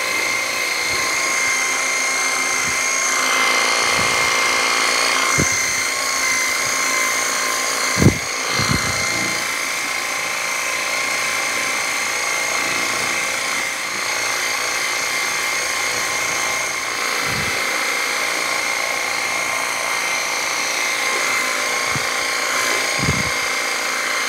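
Fixnow 500E 24-volt cordless pressure washer running: a steady high motor-pump whine over the hiss of the water spray as the car's soapy bodywork is rinsed. A few short knocks come through, the sharpest about eight seconds in.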